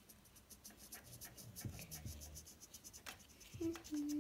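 Marker tips scratching in quick, repeated strokes as they colour a small plastic toy figure. Near the end comes a short steady hum, louder than the scratching.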